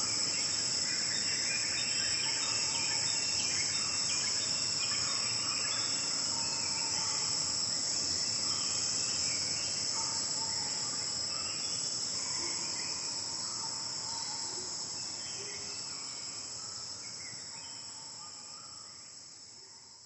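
Steady, high-pitched chorus of forest insects, with short scattered chirps lower in pitch beneath it; the whole fades out over the last several seconds.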